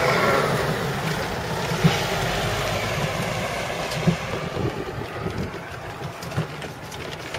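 A motor vehicle going by on the road, loudest at first and then fading away, with wind buffeting the microphone and a few soft low knocks.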